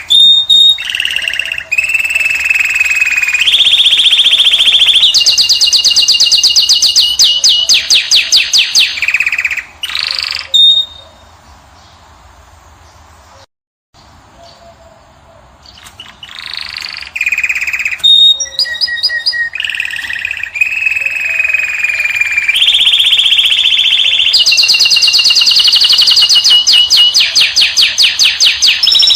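A caged finch singing loudly: long runs of fast trilled notes, each run held at one pitch for a second or two and then stepping to another. The song breaks off for a few seconds near the middle and then starts again in the same pattern.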